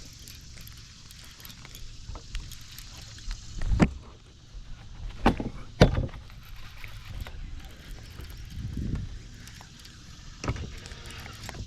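A handful of sharp knocks and thumps on a fishing boat, about five spread over several seconds, over a steady low rumble, while a bass is being fought on the line.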